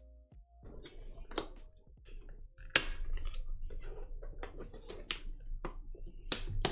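Shrink-wrap seal on a cardboard model-kit box being broken and peeled off: a string of sharp snaps and plastic crinkling.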